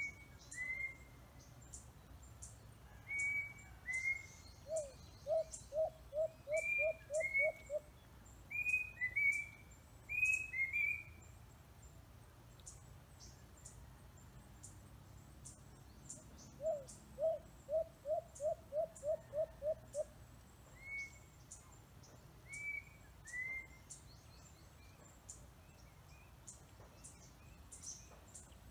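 Birds calling: pairs of short downslurred whistled notes repeated many times, and twice a fast run of about eight lower notes. Faint high ticks repeat evenly throughout.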